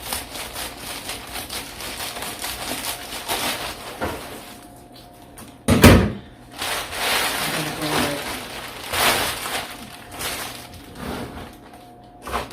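Foil-faced bubble-wrap insulation (Reflectix) crackling and crinkling as its edges are trimmed, with one heavy thump about six seconds in.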